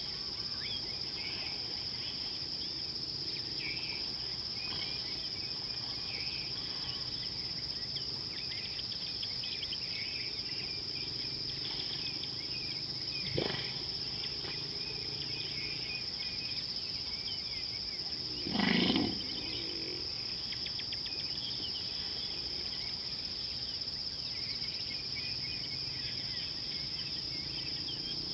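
A steady, high-pitched chorus of insects, with scattered small chirps over it. A short sharp sound comes about 13 seconds in, and a louder half-second sound about 19 seconds in.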